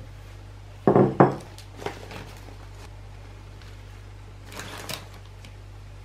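Two clunks of dishware about a second in and a few light clicks, then mixed salad leaves rustling as a hand drops them onto a plate, over a steady low hum.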